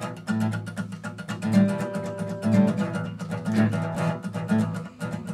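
Acoustic guitar being strummed in a steady rhythm, playing a song's instrumental introduction with ringing bass notes.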